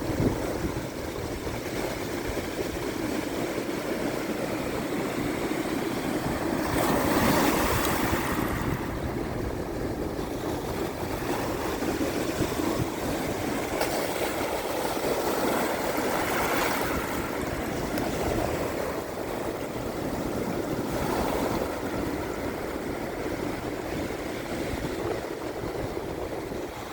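Atlantic surf washing over sea shells on the beach: a steady rushing wash that swells as each wave comes in, the biggest surge about seven seconds in and smaller ones around sixteen and twenty-one seconds.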